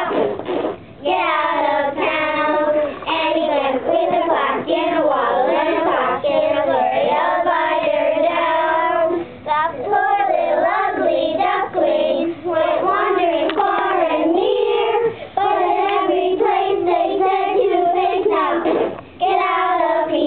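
A group of young children singing a song together, phrase after phrase with short breaks between.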